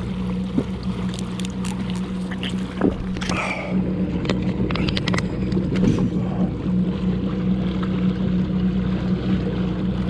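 Haswing Protruar electric kayak motor running with a steady hum, water washing along the hull, and a few short light clicks about halfway through.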